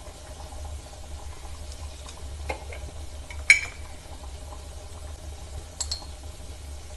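Chopped onions simmering in a little water in a cast-iron pan: a faint, steady bubbling and sizzle. A few sharp clicks cut through it, the loudest about halfway through, over a steady low hum.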